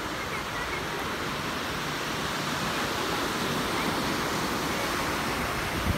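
Surf breaking and washing up on a sandy beach: a steady rushing noise that swells a little about halfway through.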